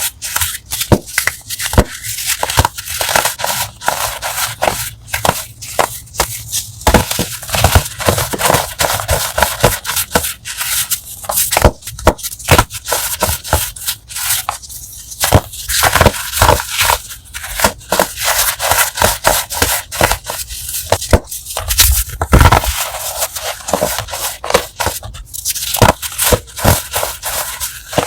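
A crumbly pressed-powder block being crushed: a dense, continuous run of sharp crunches and crackles, with a heavier crunch a little after twenty seconds in.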